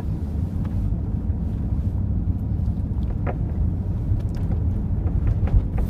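Steady low rumble of a car heard from inside the cabin, engine and road noise while it drives.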